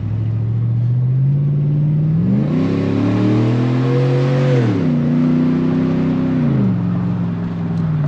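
Chevrolet Silverado pickup's engine accelerating, heard from inside the cab: the revs climb about two seconds in, then fall back sharply near five seconds and again near seven seconds as the transmission shifts up.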